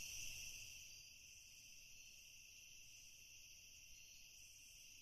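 Near silence with the faint, steady chirring of crickets and a low hum underneath.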